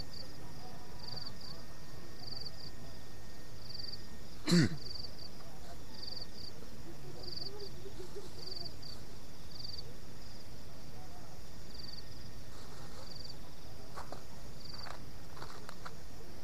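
Night insects chirping in short repeated high pulses, roughly one or two a second. A single short thump about four and a half seconds in is the loudest sound, and a few light clicks come near the end.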